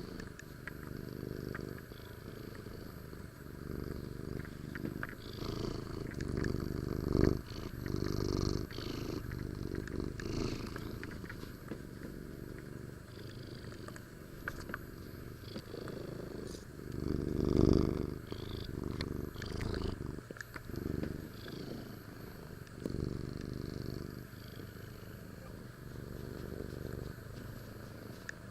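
Black kitten purring steadily, the purr swelling louder about a quarter of the way in and again past the middle.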